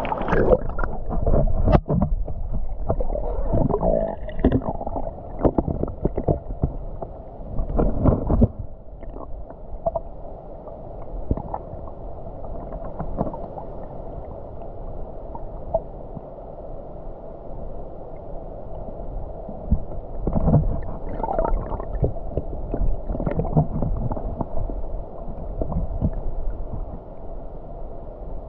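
Muffled underwater sound from a submerged camera: water gurgling and bubbling, with irregular knocks and clicks, busiest in the first eight seconds or so and again about twenty seconds in.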